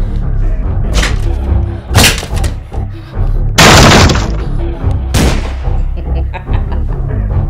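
Dramatic background music with a steady low pulse, cut by four sharp gunshot bangs, one about every second or so; the third, a little past three and a half seconds in, is the loudest and longest.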